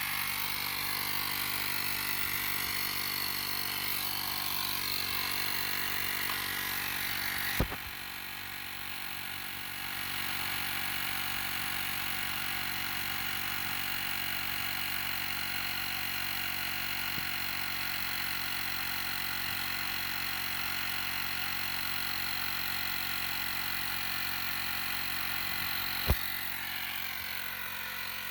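Small battery-powered TackLife portable tire inflator's piston compressor running steadily while pumping up a car tire. A sharp click comes about eight seconds in, after which the sound turns briefly quieter and duller, and another click comes near the end.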